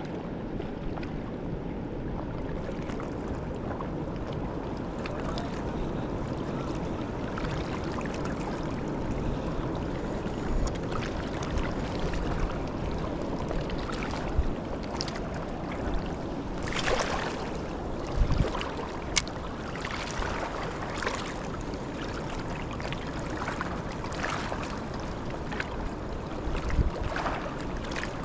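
Steady rush of fast-flowing Niagara River water, with scattered short clicks and knocks from about ten seconds in, the loudest around eighteen seconds.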